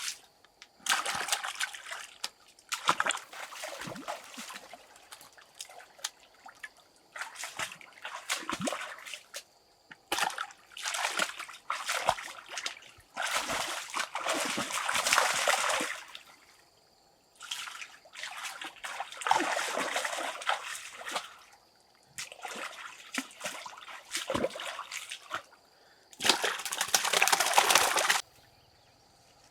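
Water splashing and sloshing in a series of separate bursts, each lasting one to three seconds, with short quiet gaps between them.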